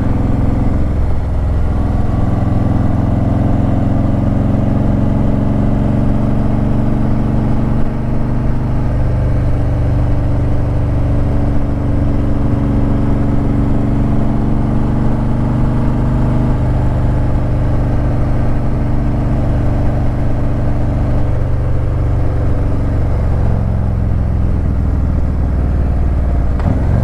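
Harley-Davidson Ultra Limited's V-twin engine running steadily under way, its pitch shifting a few times as speed and throttle change.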